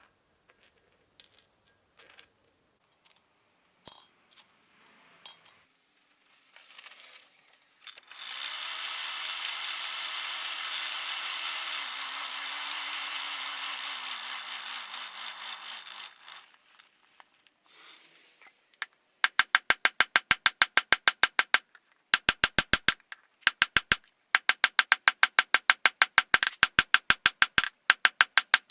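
Rapid metal-on-metal hammer strikes with a high ring, several a second, coming in runs with short pauses from about two-thirds of the way in, as in forging steel on an anvil. Before them come a few scattered clicks and a steady rushing noise lasting about eight seconds.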